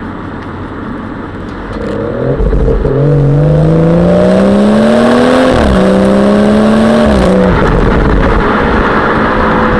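Exhaust of a BMW 440i's 3-litre straight-six, heard right at the tailpipe under acceleration: the note climbs steadily, drops sharply at a gear change about five and a half seconds in, holds, then falls away near the end. Wind rushes over the microphone throughout.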